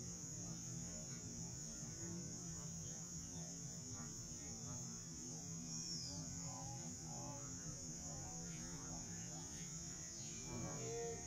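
Steady electrical hum with a thin high whine underneath, and faint music coming in near the end.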